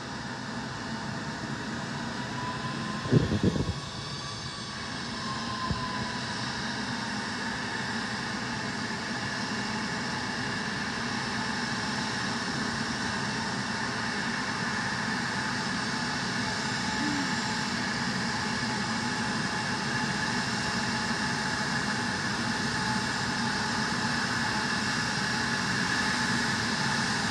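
Twin-engine regional jet taxiing in toward the gate, a steady jet engine whine and rush that slowly grows louder as it approaches. A few sharp knocks come about three seconds in.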